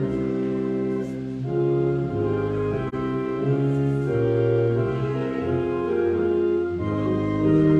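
Church organ playing a hymn: held chords, with the bass note changing every second or so.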